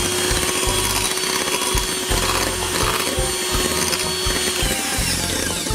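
Electric hand mixer running steadily, its beaters whipping beaten egg whites as egg yolks are mixed in; near the end the motor winds down in pitch and stops.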